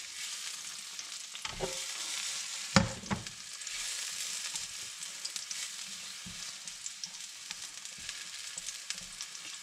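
Sliced brown birch bolete sizzling in hot olive oil in a frying pan, a steady hiss, while tongs lay the slices in with small clicks against the pan; the loudest is a sharp knock about three seconds in.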